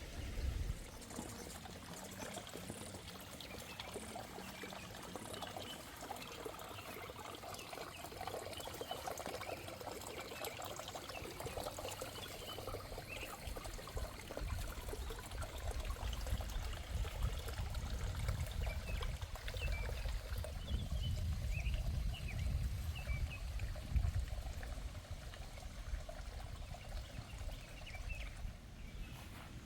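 Outdoor ambience: a steady trickle of water, with small bird chirps and bouts of low wind rumble on the microphone.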